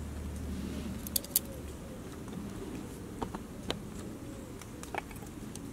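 Several sharp metal clinks spread over a few seconds as a stainless steel pot is set onto the perforated pot stand of a lit alcohol stove.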